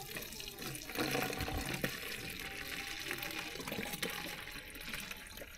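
Bottled water pouring from a small plastic bottle into a larger plastic bottle, a steady stream as it fills.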